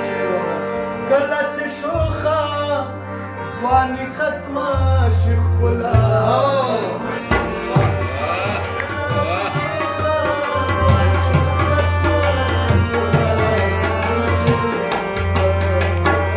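Pashto ghazal music: a harmonium playing sustained chords and melody, tabla drum strokes, and a man singing in long, bending phrases.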